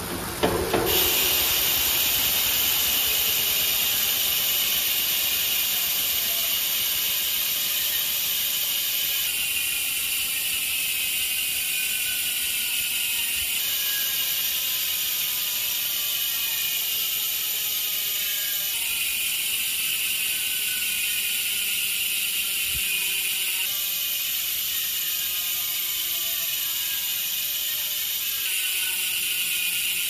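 Mountain bike rear freehub ratchets buzzing loudly as the wheel freewheels: an Industry Nine 101 hub (6 pawls, 90 engagement points) and a Hope Pro 4 hub (4 pawls, 44 engagement points) heard in turn, switching every four to nine seconds. The buzz slowly falls in pitch as the wheel slows.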